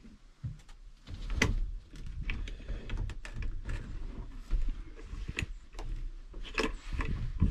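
A series of irregular knocks, clicks and rustles from gear being handled at close range, over a low rumble.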